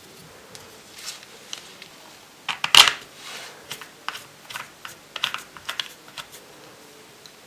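Hard plastic clicks and rattles of a Sony action camera in its frame being fitted onto a head-strap mount, with one loud snap about three seconds in and a run of lighter clicks after it.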